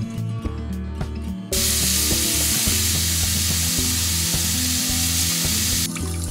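Tap water running into a stainless steel bowl of plums being rinsed by hand, a steady hiss that starts suddenly about a second and a half in and cuts off near the end. Background music with a steady beat plays throughout.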